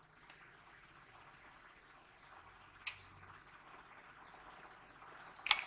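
Home-built UPS switched on from the mains: a faint, steady high-pitched electronic whine starts at once. A sharp click comes about three seconds in, and a few softer clicks follow near the end.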